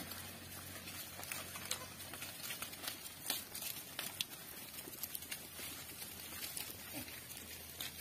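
A herd of goats walking over dry leaves and dirt: faint, irregular patter and rustle of hooves, many light ticks over a low hum.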